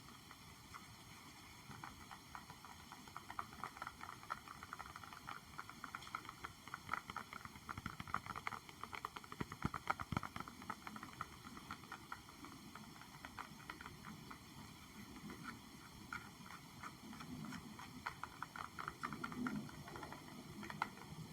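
Soft, rapid tapping on an object, many light taps a second. Near the end a low rustling of handling comes in.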